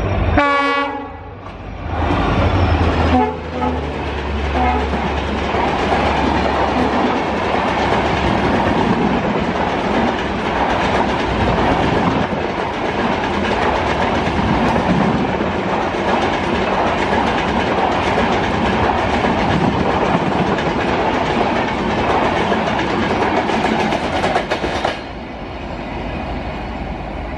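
A WDP4D diesel locomotive's horn ends about half a second in. The locomotive's engine then passes and its passenger coaches run by at speed with loud, steady wheel and rail noise for some twenty seconds, dropping off sharply near the end.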